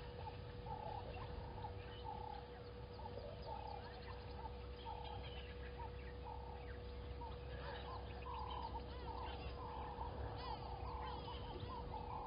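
Short animal calls repeating about twice a second, growing busier after about eight seconds, with fainter chirps higher up. A steady hum runs underneath.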